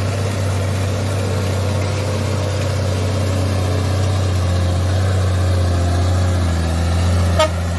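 Engine of a truck loaded with oil palm fruit bunches, running with a steady low drone as it climbs the dirt hill and draws close. A short sharp clack near the end.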